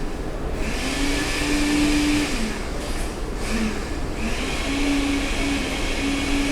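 Hot air rework station blowing on an iPhone XS logic board to heat its stacked layers for separation: a steady rushing hiss that drops away briefly a few times, over a low hum.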